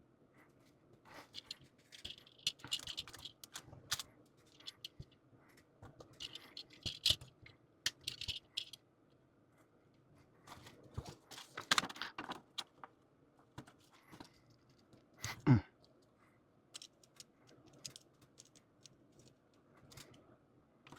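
Plastic model-kit parts being handled and pressed together: scattered small clicks, rattles and rustling. About two-thirds of the way through comes the loudest sound, short and falling quickly in pitch.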